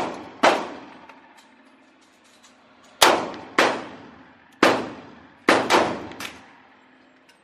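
Glock 23 pistol firing .40 S&W rounds: about seven shots, one shortly after the start and then an uneven string from about three seconds in, each followed by a reverberant tail from the indoor range.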